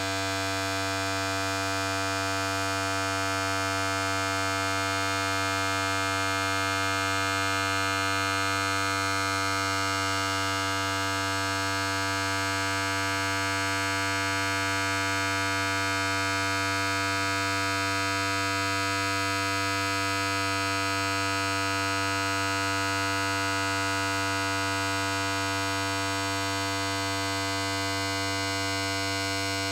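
Electric hair clipper running steadily: a constant buzz with a strong low hum under a stack of higher overtones.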